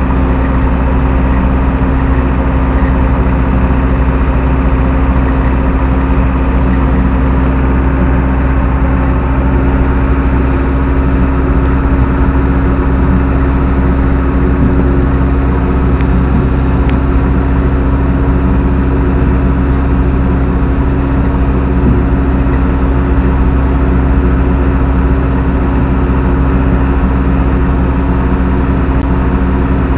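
Zetor 6745 tractor's diesel engine running steadily at a constant speed.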